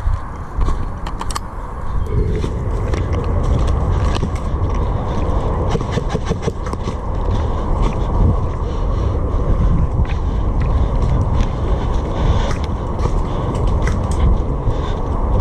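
Heavy low rumble of wind and movement on the microphone, with scattered sharp clicks and cracks of airsoft gunfire, a denser run of them about halfway through.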